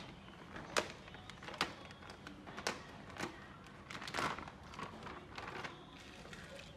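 Irregular sharp clicks and knocks of hand work on a car engine's ignition parts, likely spark plug lead boots and connectors being handled and fitted, about five in all with the loudest, longest rattle about four seconds in.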